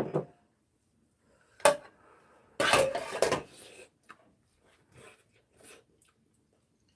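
Metal spoon clinking and scraping against a ceramic bowl as rice is stirred and mixed: one sharp clink, a louder stretch of scraping and clatter, then a few light taps.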